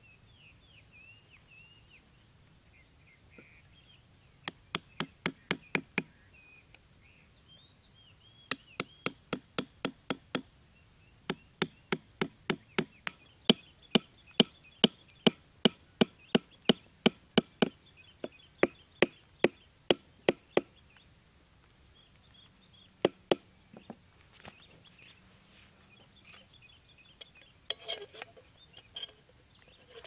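Hammer striking the tops of wooden stakes, driving them into sandy ground: several runs of sharp knocks, the longest at two to three blows a second, with a last pair of blows a little later.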